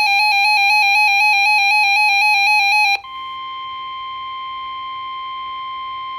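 Emergency Alert System broadcast on NOAA Weather Radio. A loud, rapidly warbling electronic data tone runs for about three seconds and cuts off abruptly. It is followed by a quieter, steady single alarm tone at about 1 kHz, which signals a weather warning is about to be read.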